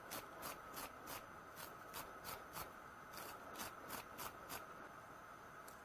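Steel wire hand brush scrubbing the threads of a small metal screw: faint quick scratchy strokes, about three a second, stopping a little over four and a half seconds in.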